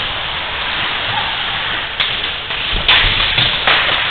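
Ice hockey game sound: skates scraping and the rink's steady noise, with two sharp clacks of stick and puck about two and three seconds in.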